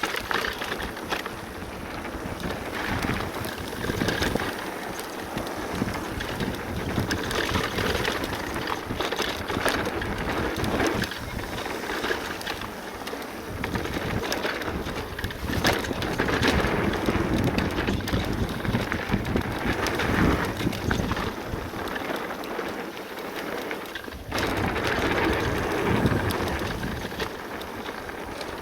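Full-suspension e-mountain bike rolling fast down a dirt trail: tyres rushing and crunching over the ground with a steady run of clicks and rattles from the bike over bumps, swelling and easing in loudness, with a brief drop a little over twenty-four seconds in.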